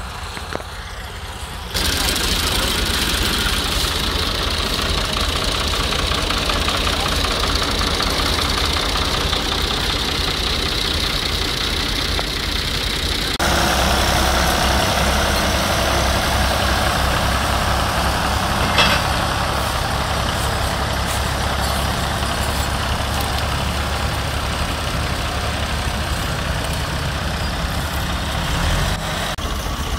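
Several tractor diesel engines running hard together, pulling a heavily loaded trolley stuck in mud. The engine noise changes abruptly about two seconds in and again around thirteen seconds.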